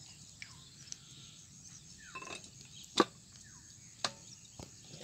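A hand working on a small stationary pump engine: one sharp click about three seconds in, with a softer click about a second later. Faint falling bird chirps are heard behind it.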